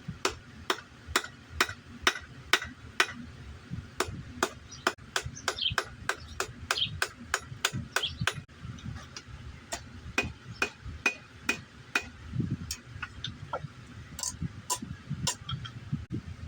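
Hand hammer striking hot steel on an anvil, about two blows a second at first and then less evenly, some blows leaving a short high ring from the anvil.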